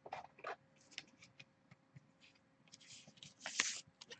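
Faint rustling and light clicks of a trading card in a plastic sleeve being handled, with a short louder scrape near the end.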